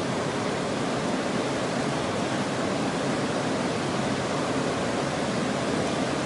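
Steady rush of fast-flowing river water below a dam, an even hiss-like roar with no breaks.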